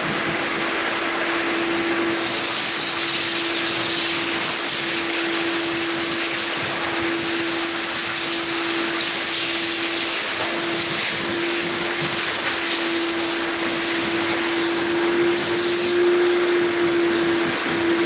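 Car wash machinery running with a steady hum and a constant whine. A hissing spray joins about two seconds in and stops near the end.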